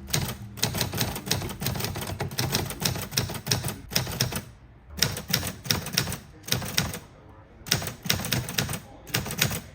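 Typewriter being typed on: quick runs of key strikes, with short pauses between the runs.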